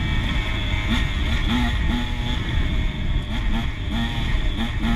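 Dirt bike engine running under way, its note coming and going in short pitched stretches, under heavy wind rumble on the microphone.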